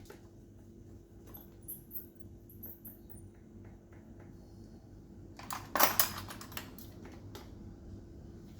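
Light clicks and metallic clinks of tools and fittings being handled, with a louder cluster of clatter about six seconds in, over a faint steady hum.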